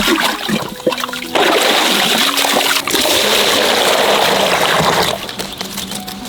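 Running water splashing for nearly four seconds, starting suddenly about a second and a half in and cutting off abruptly.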